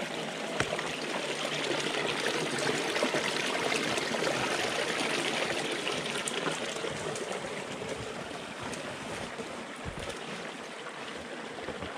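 A small brook running and trickling over rocks, partly frozen, with water flowing beneath snow-covered ice shelves; a steady, even rush of water.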